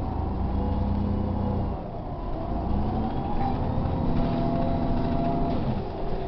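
New Flyer low-floor city bus engine and drivetrain heard from inside the cabin as the bus moves along the street. The engine note drops about two seconds in, then climbs again as the bus pulls ahead, and falls off near the end.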